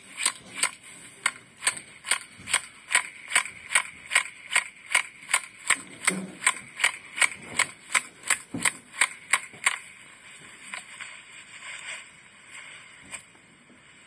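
A small hammer tapping the back of a grafting knife, driving the blade down into a young walnut rootstock to split the groove for a notch graft: sharp, even taps about three a second, thinning out to a few fainter ones near the end.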